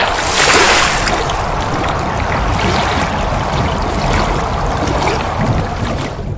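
Loud, steady rushing noise, like rain or running water, without any voice or tune in it; it starts to fade near the end.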